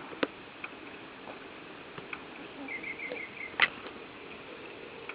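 A 9-week-old baby's sneeze: a few faint squeaky catches of breath, then one short, sharp sneeze about three and a half seconds in. There is a sharp tick just after the start, over steady hiss.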